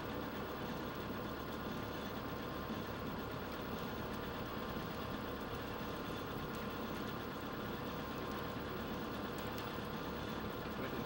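A steady engine hum, running evenly without change.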